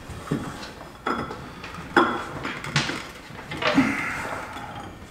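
Metallic clanks and knocks, about five roughly a second apart, as a drive belt is worked by hand down into the spread-open CVT clutch of a Yamaha Viking side-by-side, with tools and metal parts knocking together.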